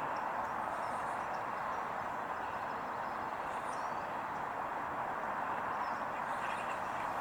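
Steady hum of distant road traffic, with a few faint high bird chirps.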